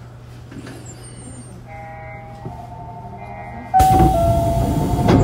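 Osaka Monorail 2000 series train with a Hitachi IGBT inverter: a low steady hum, then several steady high tones that come in about two seconds in and step in pitch. About three-quarters of the way through comes a sudden much louder rush, ending in a knock.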